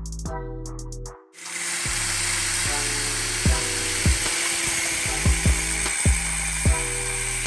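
Background music with a steady beat; a bit over a second in, a power tool starts and runs steadily with a loud, even whir over the music.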